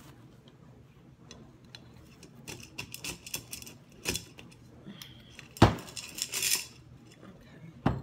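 White decorative stones rattling and clinking against the glass of a cylinder vase as artificial flower stems are pushed down into them and the vase is shaken to loosen the stones. The clinking comes in bursts after a quiet first couple of seconds, with a loud knock a little after halfway and another near the end.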